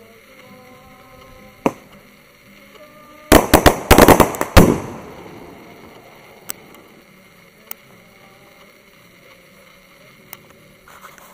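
Firecrackers going off: one sharp bang, then a rapid run of loud cracks lasting about a second and a half with a fading echo, followed by a few scattered single bangs and another short burst at the end.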